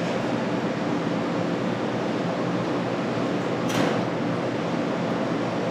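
Steady mechanical hum and hiss of running kitchen equipment, with a brief rustle about two-thirds of the way in.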